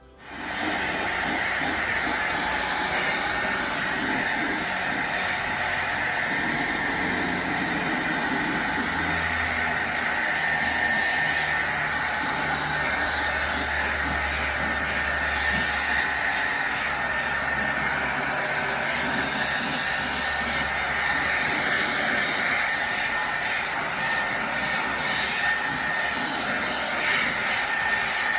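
Handheld hair dryer switched on at the very start and running steadily on hot, a loud even rush of air with a faint high motor whine.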